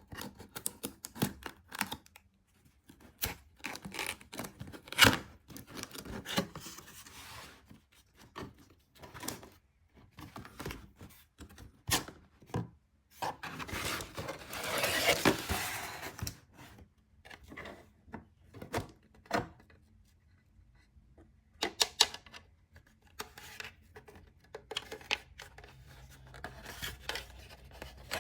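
Toy packaging being handled and opened: scattered clicks and taps, with a longer tearing, rustling stretch around the middle.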